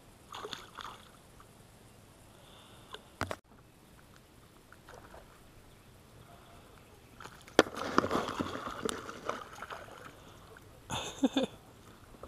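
Water sloshing and splashing around a fishing boat, with a few sharp knocks on the boat. The loudest splashing comes in a stretch of about two seconds past the middle, as a hooked bass is brought up to the boat.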